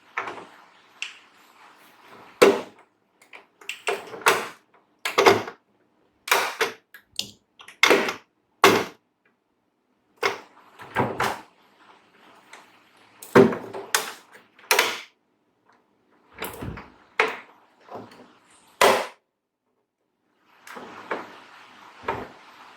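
Irregular sharp knocks and clicks, about twenty, some in quick pairs: hard parts and tools being handled and set down on a workbench.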